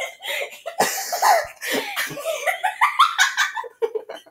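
Teenagers laughing hard in short, irregular bursts mixed with coughing, the coughing from a boy holding his shirt over his nose against the smell of a fart.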